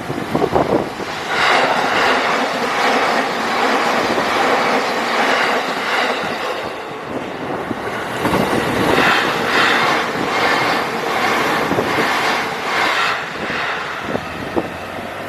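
JR Nambu Line electric train passing over a level crossing: a loud rush of wheel-on-rail noise with a rhythmic clatter as each car's wheels cross the crossing, easing off near the end, with a few single wheel clacks.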